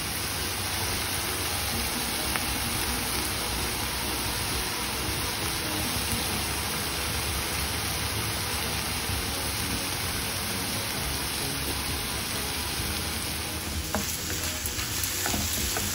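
Chopped ridge gourd and grated coconut sizzling steadily in oil in a kadai while a wooden spatula stirs them, with a few spatula scrapes and knocks near the end.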